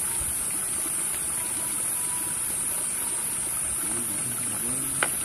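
Steady high-pitched insect chorus with a slight regular waver, with faint voices near the end and a single sharp click just before it ends.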